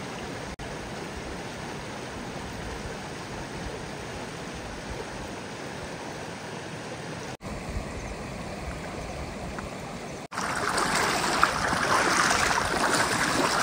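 Rushing river water: a steady rush that jumps louder about ten seconds in.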